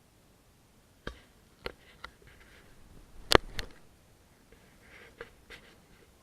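A series of short, sharp clicks and knocks, about seven in all, irregularly spaced, the loudest a little over three seconds in, with faint rustling between them.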